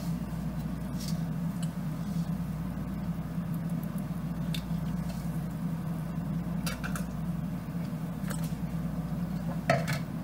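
Steady low hum, like an appliance running, under a few small clicks and gulps from drinking water out of a plastic cup, with a louder click near the end.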